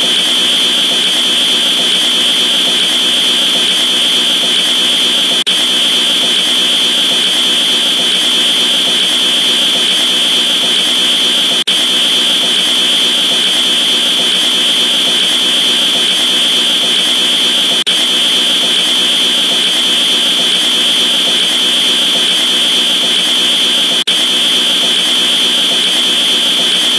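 A roaring sound effect played as a loud, steady, buzzing noise with a piercing high edge. It loops about every six seconds, with a brief dropout at each join.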